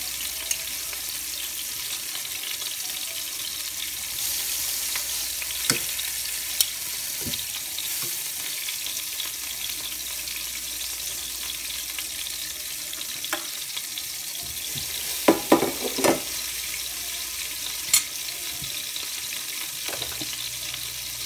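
Fish frying in hot oil in a nonstick pan: a steady sizzle, with a few sharp clicks of metal tongs against the pan as more fish are laid in, including a quick cluster about three quarters of the way through.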